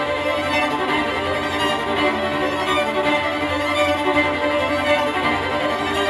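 Violin music with sustained bowed notes, played back through Cube Audio Jazzon full-range loudspeakers driven by a Tektron single-ended tube amplifier running 300B tubes.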